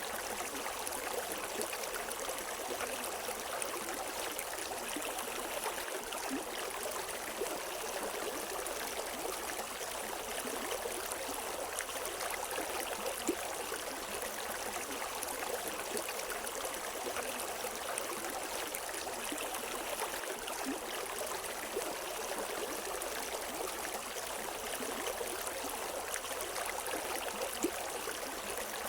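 A river's water flowing and splashing over rocks, a steady rushing with small gurgles and drips scattered through it.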